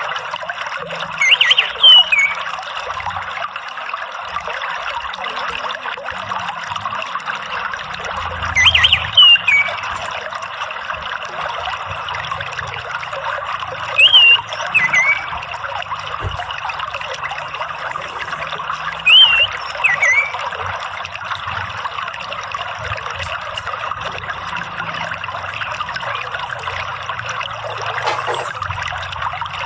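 Water trickling steadily, with an orange-headed thrush giving a short whistled phrase of bending notes four times, every five to seven seconds; the bird phrases are the loudest sounds.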